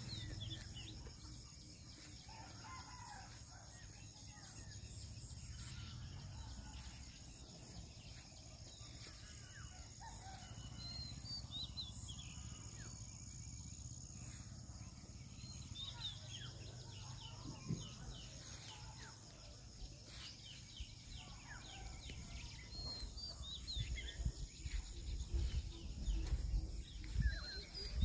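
Outdoor birdsong: many short bird chirps and calls, with a rooster crowing. Low rumbling on the microphone grows near the end.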